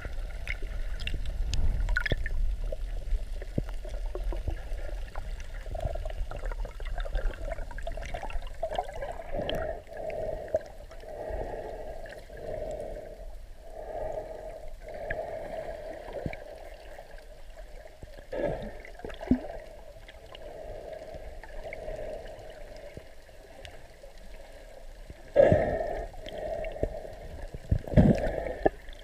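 Water moving around a submerged camera: muffled rushing and gurgling that swells and fades every second or two, with two sharper, louder surges near the end.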